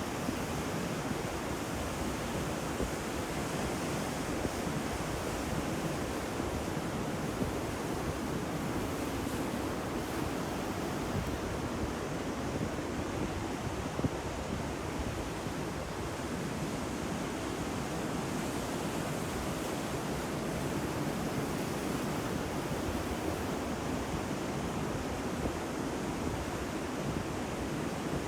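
Ocean surf: waves breaking and washing in a steady, continuous roar, with some wind.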